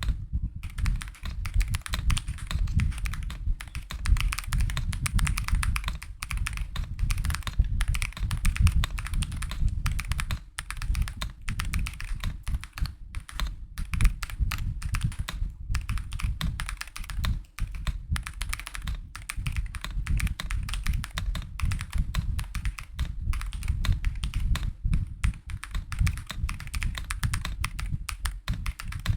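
Continuous fast typing on a mechanical keyboard fitted with Akko Botany linear switches: a dense run of key presses with a soft, thocky bottom-out, not loud but not silent.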